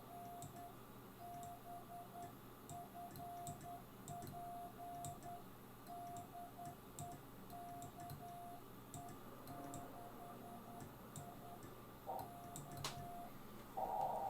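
Morse code (CW) on a ham radio transceiver: a single mid-pitched tone keyed on and off in dots and dashes, with faint clicks alongside. Near the end a much louder tone at the same pitch comes in.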